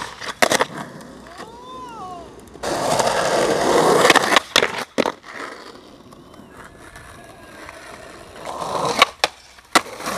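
Skateboard on asphalt and concrete: the wheels run loud for about two seconds, and the board hits the ground in sharp clacks, several in quick clusters, from pops and landings.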